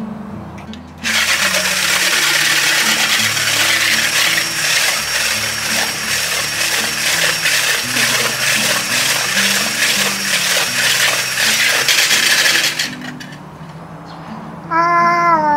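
Electric hand blender with a whisk attachment whipping egg whites into meringue in a glass bowl: a loud, steady whirring that starts about a second in and stops after about twelve seconds, over quiet background music.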